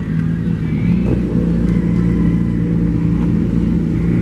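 Engine of a drag-racing vehicle running loudly at a steady, near-constant pitch while it waits at the starting line.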